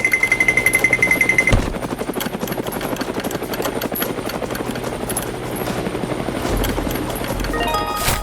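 Fast, steady chugging of a small engine, the running sound of a mini tractor or bulldozer, with a steady high-pitched tone over it for the first second and a half.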